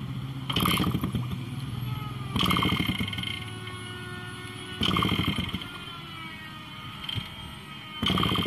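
Motorcycle kick-starter kicked four times at uneven gaps, spinning the TVS Suzuki's single-cylinder two-stroke engine over with its spark plug out and earthed on the cylinder, a spark check now that a loose earth wire has been reconnected.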